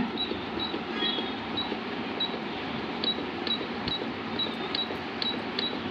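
Control-panel beeps of a Singer C5605 computerised sewing machine, one short high beep per button press, about a dozen in a row as the stitch-selection number is stepped up.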